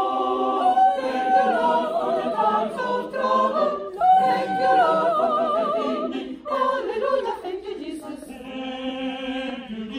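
Mixed choir of women's and men's voices singing a sacred song a cappella, with sustained notes and vibrato. It ends the phrase on a long held chord near the end.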